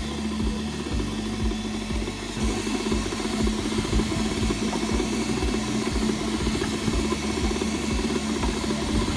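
FDM 3D printer at work: its stepper motors whir and shift pitch as the print head moves quickly back and forth, laying down a single outline, over a steady hum from the head's cooling fans.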